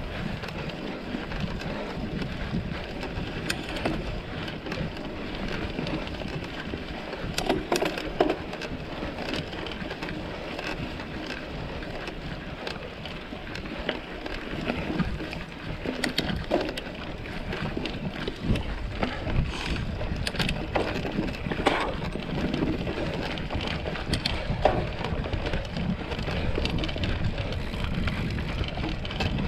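Mountain bike ridden off-road: steady tyre noise on a dirt trail, with scattered clicks and rattles from the bike.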